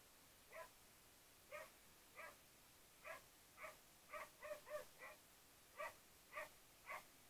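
A dog barking: about a dozen short, faint barks at uneven intervals, several coming in quick succession around the middle.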